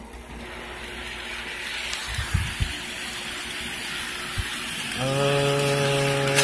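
Model diesel locomotive running along sectional track, its motor and wheels growing louder as it approaches, with a few soft knocks. About five seconds in comes a steady, single-pitched horn blast lasting about a second and a half, from the locomotive's sound system.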